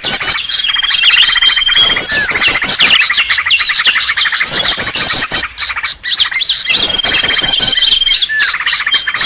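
Bird-luring track of green leafbirds (cucak ijo) calling noisily: dense, overlapping chirps, fast high trills and a held whistle, with phrases recurring every few seconds.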